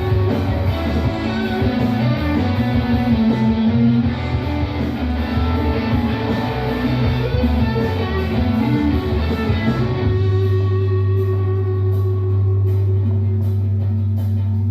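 Instrumental guitar music with bass and no singing. About ten seconds in, the texture thins to a steady held low note.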